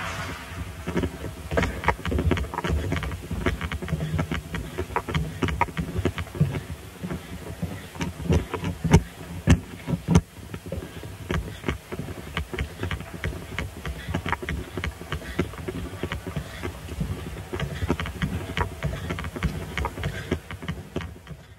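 Muffled bumps, knocks and rubbing heard from a microphone hidden inside a carried attaché case, over a steady low rumble; the knocks come thick and irregular, with a few louder ones around the middle. The sound cuts off suddenly at the end.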